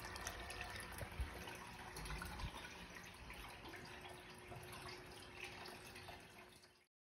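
Water churning and splashing at the surface of a newly filled aquarium, stirred by its circulation flow, with a soft low thump about a second in. The sound cuts off abruptly near the end.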